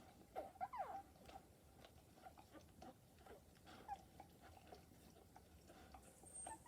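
Newborn wire-haired dachshund puppies squeaking faintly, with a short falling squeal a little under a second in and another brief squeak near the middle, among small soft clicks.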